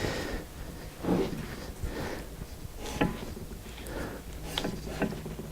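A few light knocks and clicks of hand work on the bench mill's metal Z-axis slide parts, scattered over a quiet room.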